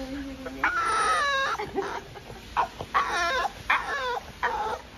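French bulldog whining in high-pitched cries that fall in pitch: one longer cry about a second in, then a run of shorter ones near the end.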